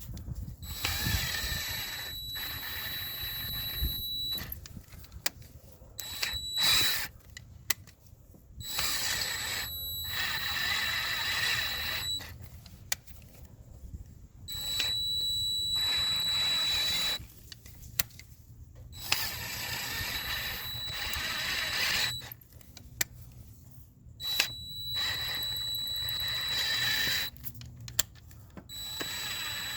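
Electric drill running in repeated start-stop bursts of about two to four seconds, each with a steady high-pitched whine.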